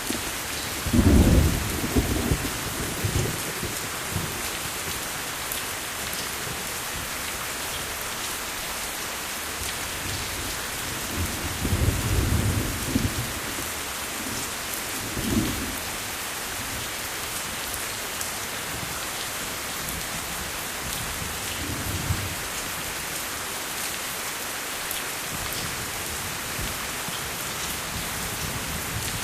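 Steady rain falling, with several low rumbles of thunder; the loudest rolls in about a second in, another comes near the middle, and shorter ones follow.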